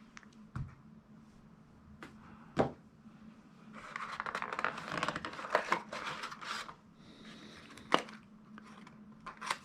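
Paper rustling and crinkling for a few seconds, as an instruction sheet is unfolded and handled, with a few light knocks and clicks around it.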